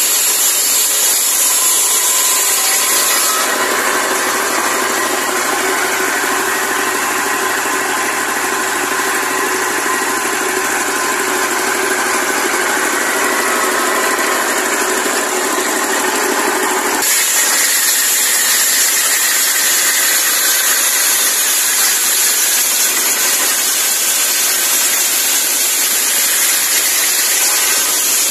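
24 hp diesel engine running steadily under load, belt-driving a circular saw blade that rips lengthwise through a log, with the spray of sawdust off the blade. The sound changes abruptly about three seconds in and again a little past halfway, where the blade's tone in the mix shifts between cutting and spinning.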